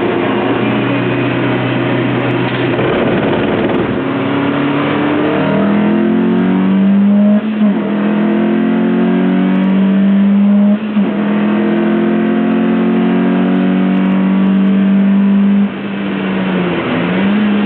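Lotus Elise engine pulling hard through the gears: the pitch climbs, drops briefly at upshifts about seven and eleven seconds in, and climbs again. About sixteen seconds in the driver lifts off and the revs fall, with a quick blip on the downshift just after.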